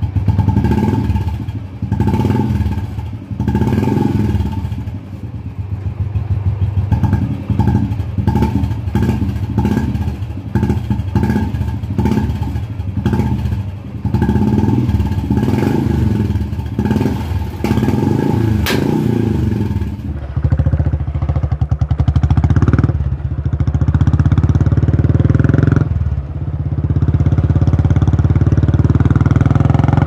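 Royal Enfield Classic 350's single-cylinder engine through an aftermarket Indori silencer with its extra baffle plate taken out, revved in quick repeated throttle blips about once a second. About two-thirds of the way through it changes to a steadier run under load as the bike is ridden.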